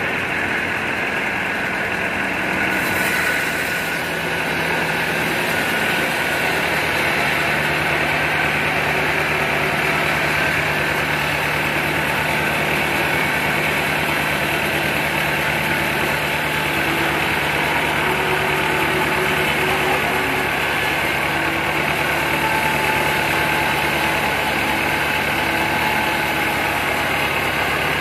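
Horizontal band sawmill running steadily, its blade cutting through a very large log, with an engine-like hum underneath that firms up about four seconds in.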